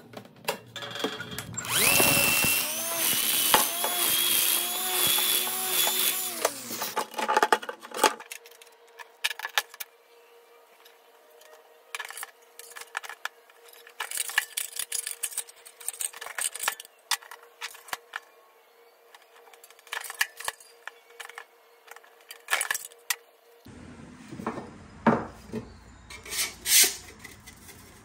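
Thin sheet steel being cut and folded on an Eastwood shear-brake-roll machine. A few seconds of loud harsh metal noise with a wavering squeal come first, then scattered light clicks and clanks of the sheet and the machine's parts.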